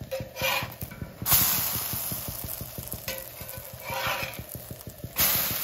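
Pancake batter sizzling in a hot buttered cast iron skillet as a metal spatula scrapes under the pancakes and flips them. The sizzle swells loudly after a flip about a second in and again near the end.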